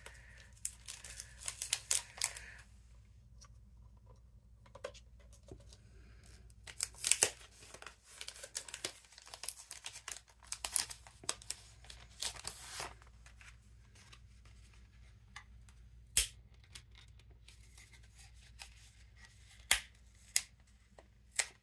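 Handling of cardstock and thin metal cutting dies on a die-cutting plate: spells of paper rustling and scraping, then a few sharp clicks in the second half as pieces are set down.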